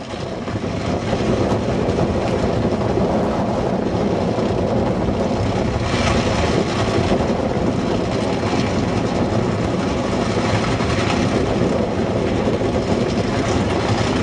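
Top Fuel dragster's supercharged nitromethane Hemi V8 running steadily on the starting line, with strong wind buffeting the microphone.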